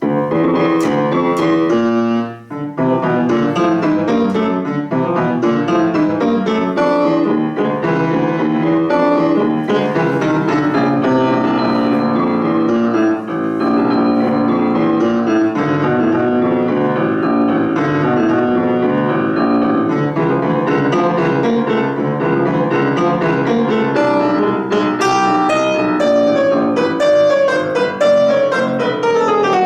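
Solo piano playing a classical piece, beginning suddenly after a short silence and then going on as continuous playing with many notes.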